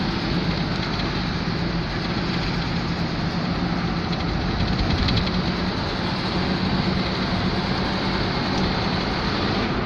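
Steady road noise inside a moving vehicle's cabin: tyre and wind rush with a steady low engine hum.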